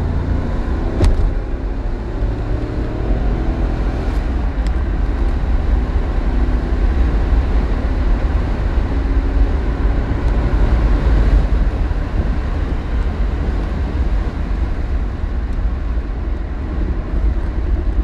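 Lancia Thema 8.32 on the move, its Ferrari V8 running steadily under a continuous low rumble of road and tyre noise, with a sharp click about a second in.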